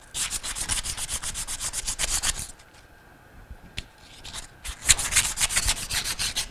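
Emery cloth rubbing back and forth in quick, even strokes around the brass shaft sleeve of a Bell & Gossett Series 1510 pump, buffing built-up gunk off the sleeve so it can be reused. The strokes come in two spells, with a pause of about two seconds in the middle broken by a single click.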